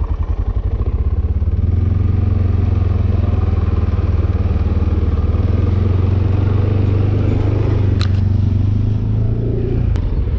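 ATV engine running steadily, its note stepping up slightly about a second and a half in and easing off near the end. Two sharp clicks about eight and ten seconds in.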